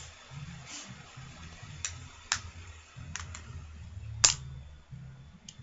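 A handful of sharp, separate clicks and taps, about six, the loudest about four seconds in: small plastic makeup containers and caps being handled.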